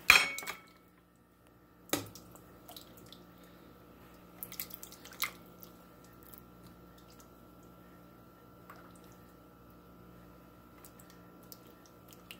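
Soup ladled from a pot into a ceramic bowl: a splash of broth pouring in at the very start, a sharp clink of the metal ladle against the bowl about two seconds in, then a few small drips and taps over a faint steady hum.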